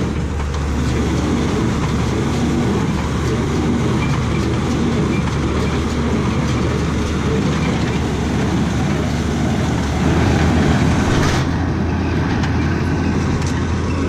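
International 435 small square baler and the tractor pulling it running steadily while picking up and baling grass hay, a continuous mechanical din with a deep hum. It grows louder for a moment about ten seconds in.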